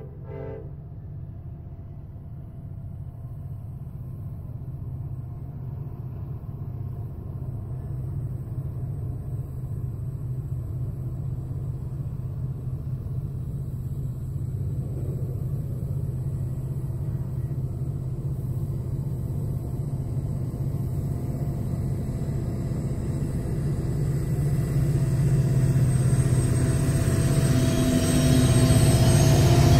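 Freight train diesel locomotives running, a low steady rumble that grows steadily louder as the train approaches, with a brief horn toot right at the start and whining tones coming in near the end.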